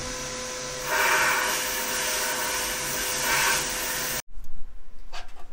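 Abrasive blast cabinet running, a steady hiss with a faint hum underneath. The hiss grows louder about a second in, as the blast gun sprays a steel bracket, and stops suddenly after about four seconds. A few sharp metal clinks and knocks follow near the end.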